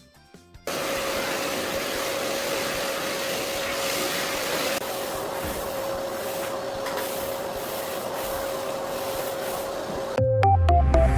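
A steady machine whir with a hiss and a single steady hum tone, starting suddenly about a second in and cutting off near the end, when music comes back in.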